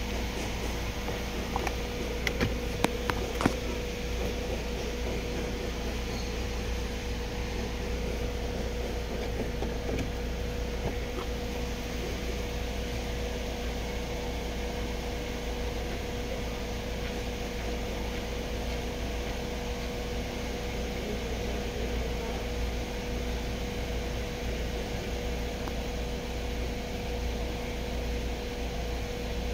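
Ford EcoSport engine idling, heard from inside the cabin as a steady low hum with a faint steady whine over it. A few light clicks come about two to three seconds in.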